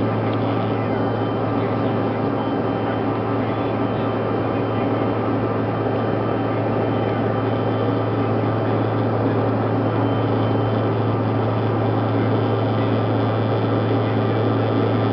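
Steady cabin noise of a CRJ-200 regional jet in flight: its two rear-mounted General Electric CF34 turbofans and the airflow around the fuselage make an even rush over a strong low hum, with a faint high whine.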